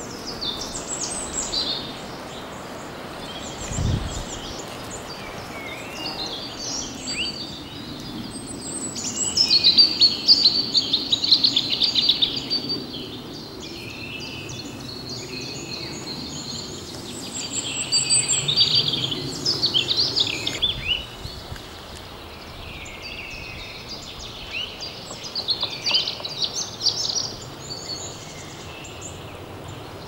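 Small songbirds singing and calling, with louder song phrases in three spells, each a few seconds long, over a faint steady background. A short low thump about four seconds in.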